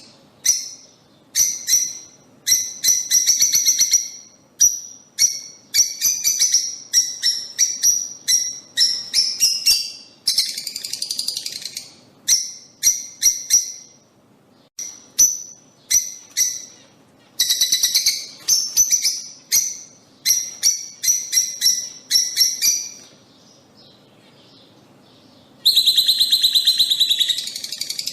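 Lovebirds chirping and chattering in rapid runs of high-pitched calls, broken by short gaps and a brief lull about three-quarters of the way through.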